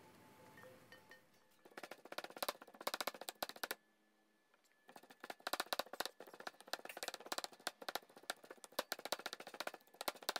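Stone pestle pounding roasted chillies, shallots and garlic in a granite mortar: a run of quick sharp strikes that starts a couple of seconds in, stops for about a second near the four-second mark, then carries on.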